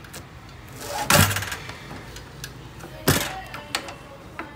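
Heavy-duty lever-operated guillotine paper cutter being worked: two loud strokes of the blade and handle, about a second in and about two seconds after that, followed by a few lighter knocks.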